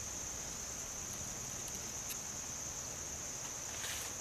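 Steady, high-pitched drone of insects in the surrounding vegetation, with a couple of faint clicks about two seconds in and near the end.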